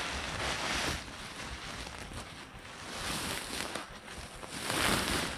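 Loose potting media (sand, rice-husk soil and topsoil) being scooped, poured and mixed, a rustling, scraping noise that swells near the start and again about five seconds in.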